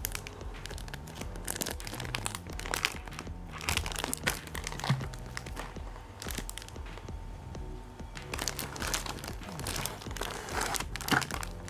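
Thin plastic packaging crinkling in irregular bursts as hands handle and work at the sealed top of a plastic bag. Background music with steady low notes runs underneath.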